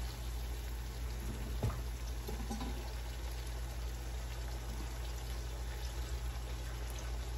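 Pieces of snakehead fish cooking in hot spiced oil in a pot, a steady sizzle and bubble, with a faint knock of a utensil about a second and a half in.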